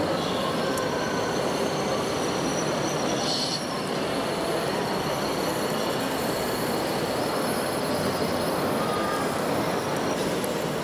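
Steady hall din with the thin, high whine of RC model trucks' electric drive motors and gearboxes, gliding up and down as they creep along.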